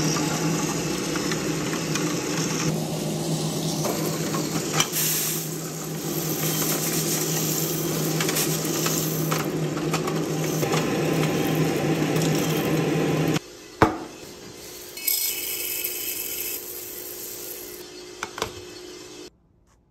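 ARC 800G coffee roaster's cooling tray running: a steady fan hum with the stirring arms sweeping freshly roasted beans around the metal tray in a continuous rattling rush. About two-thirds of the way through this cuts off suddenly to a quieter stretch with a few sharp knocks of glass as a lid is set on a glass bean jar.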